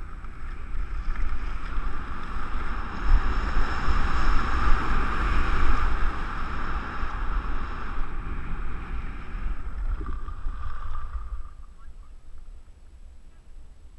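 Wind buffeting a body-worn camera's microphone and skis hissing and scraping over groomed, hard-packed snow during a downhill run. The sound is strongest mid-run and dies down near the end as the skier slows.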